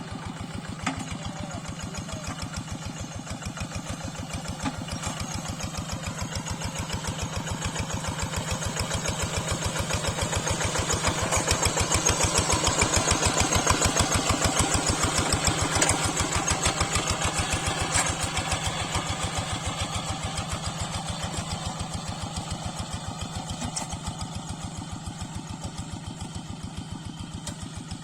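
Yanmar hand tractor's single-cylinder diesel engine running with an even, rapid chugging. It grows louder toward the middle and fades again, as if it comes past and moves away.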